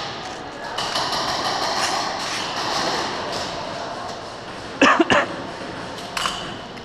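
Two sharp airsoft gun pops about a third of a second apart, about five seconds in, with a smaller click a second later, over echoing arena noise and faint distant voices.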